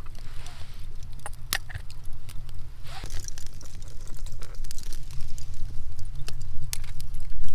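Light metallic clicks and clinks as the metal crank handle of a brass hand coffee grinder is picked up off a stone block and handled, over a steady low rumble.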